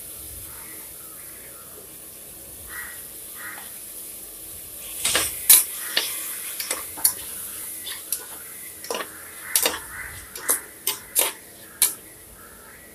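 Sliced onions sizzling in oil in an aluminium pressure cooker, then from about five seconds in a steel spoon stirring them, knocking and scraping against the pot in a string of sharp clinks.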